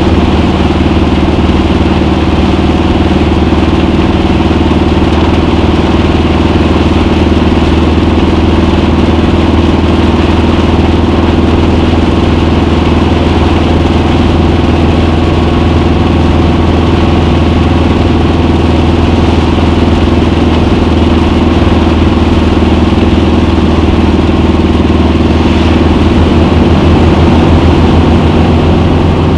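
Classic VW Beetle's air-cooled flat-four engine running steadily while driving, heard from inside the cabin.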